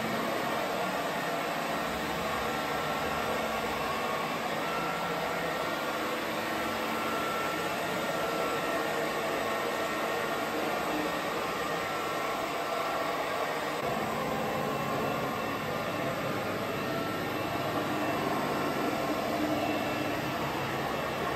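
CYBERDYNE CL02 autonomous cleaning robot's vacuum suction running steadily as it drives over the floor, a constant rushing noise with a faint whine on top.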